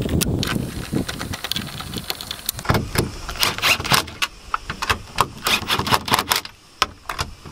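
Cordless driver with a 10 mm socket on an extension, run in several short bursts to snug the tow mirror's mounting nuts, with a rattle of sharp clicks from the socket and tool.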